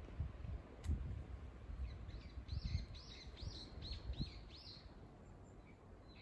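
A bird singing a run of about seven short, arched whistled notes, two or three a second, starting about two seconds in. Low rumbling and a few soft bumps lie underneath.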